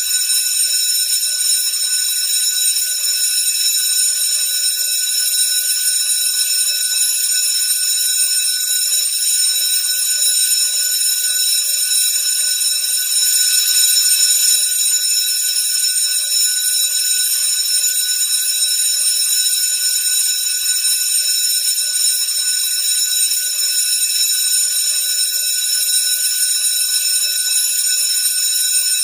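School bell ringing continuously, a steady high ring with no pauses, swelling slightly about halfway through.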